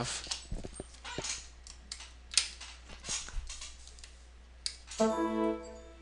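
Scattered computer mouse clicks, with a short held, steady-pitched hum-like sound about a second long near the end.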